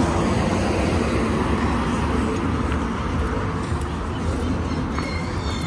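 Steady outdoor street noise of road traffic, a low even rumble without a break, with a few faint high chirps near the end.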